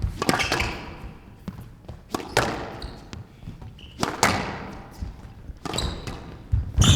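Squash rally: the ball is struck by rackets and cracks off the court walls every second or two, each hit ringing out in the glass court. A quick cluster of hits comes near the end, with short high squeaks between the hits that fit court shoes on the floor.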